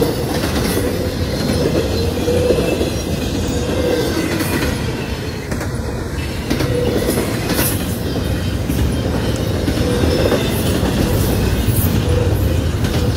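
Double-stack intermodal freight cars rolling past a grade crossing: a loud, steady rumble of steel wheels on rail with irregular clacks as the wheels pass over joints, and a wavering wheel squeal now and then.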